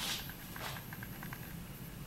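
Two short rustling swishes, one at the start and a second about half a second in, as a performer's shirt moves against a clip-on microphone while he bends down. Faint, irregular small clicks run underneath.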